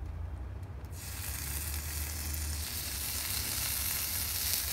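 Flatbread pizza crusts sizzling on a hot Blackstone flat-top griddle, a hiss that sets in about a second in and slowly grows louder, over a steady low hum.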